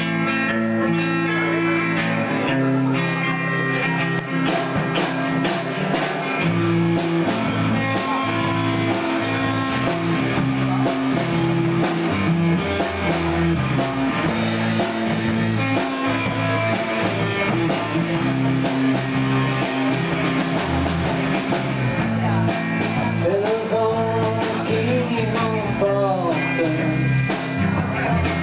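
Live band playing with electric guitar and bass guitar over a steady groove; a voice sings briefly near the end.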